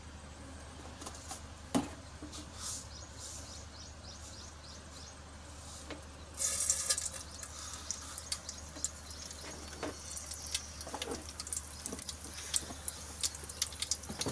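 Mustard seeds tipped into hot oil in a pot: a sudden sizzle about six seconds in, then a run of sharp pops and crackles as the seeds begin to splutter. Before that, only a few faint ticks from the heating oil.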